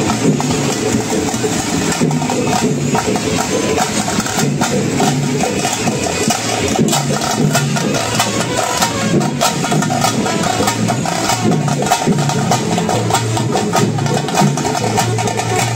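A procession drum band: several shoulder-slung drums beaten with sticks in a fast, dense, continuous rhythm.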